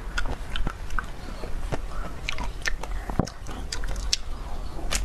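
Close-up biting and chewing of a chocolate-coated ice cream bar: the crisp chocolate shell cracks in scattered sharp crunches.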